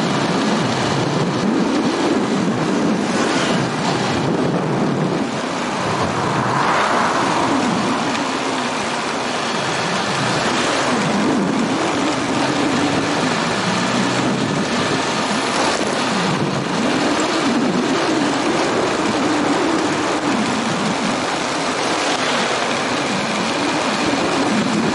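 Motorbike engine running while riding through city traffic, its pitch rising and falling over and over as the throttle opens and closes, under a steady rush of wind on the microphone.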